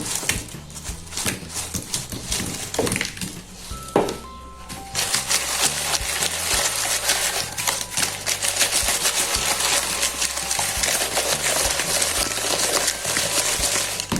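Fried dough balls being tossed and rolled in granulated sugar in a bowl, making a dense, gritty rustling full of fine clicks that starts about five seconds in. A few sharp knocks come before it, about three and four seconds in. Background music plays under it.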